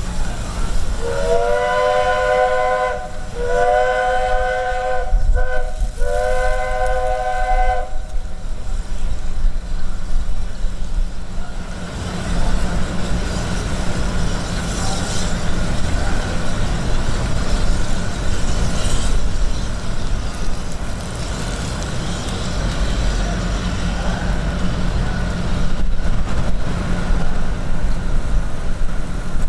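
Walt Disney World Railroad steam locomotive sounding its chime whistle in three long blasts, each about two seconds, then a steady low rumble as the train moves off.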